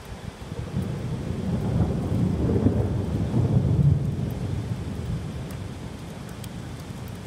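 A roll of thunder that builds to a low rumble and slowly dies away, over steady heavy rain.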